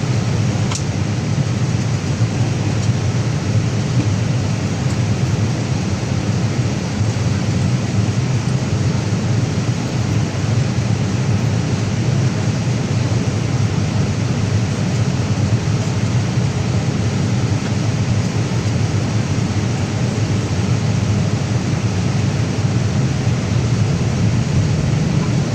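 Steady cabin noise inside a Boeing 787 Dreamliner on approach: a continuous rush of airflow and engine sound, strongest and deepest low down, with a faint steady hum above it.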